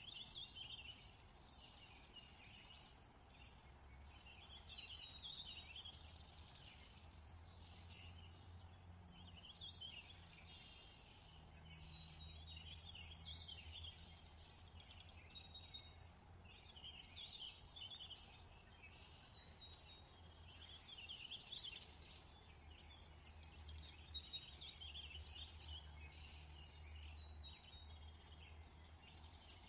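Faint chorus of small songbirds chirping and twittering, with a few louder chirps in the first several seconds, over a low steady hum.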